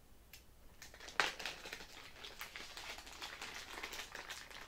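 A small clear plastic parts bag crinkling and rustling as it is handled, after a sharp click about a second in.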